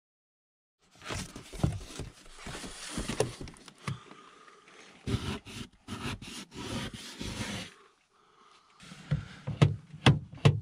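A fingertip scraping and rubbing through frost on the inside of a car window, in a run of rough, irregular strokes. After a short pause, a few sharp knocks come near the end.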